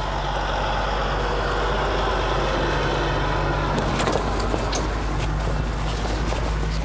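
A vehicle engine running steadily, a constant low drone. About four seconds in, the heavy tarp flap rustles and snaps as it is flipped up.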